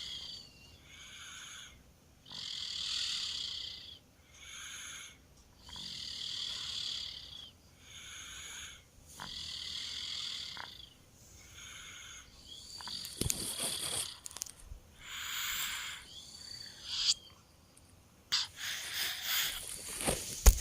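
A two-year-old child snoring in deep sleep: wheezy, rasping breaths in and out, a short one followed by a longer one about every three and a half seconds. Near the end, clicks and a louder rustle.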